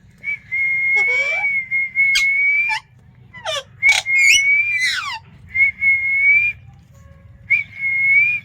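Pet parrot whistling: several held, steady high notes, with quick sharp chirps sweeping down in pitch between and over them, clustered around the middle.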